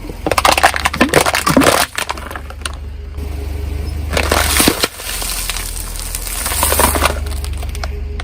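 A car tyre rolling over brittle objects and crushing them, with dense crackling and snapping in bouts in the first two seconds, again around four to five seconds in, and briefly near seven seconds. The car's engine runs underneath as a steady low hum.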